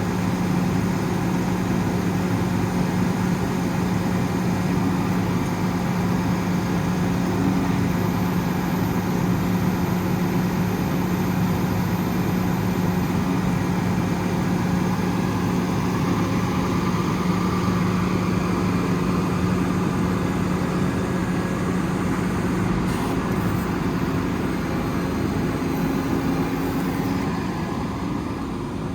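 Cummins ISL 8.9 diesel engine of a Freightliner M2 truck running steadily, with a steady low hum that steps up to a higher pitch a few seconds before the end.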